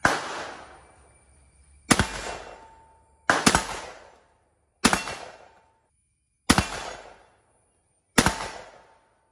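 Six shotgun shots firing Zala slug rounds, about one and a half to two seconds apart, each a sharp report that dies away over about a second.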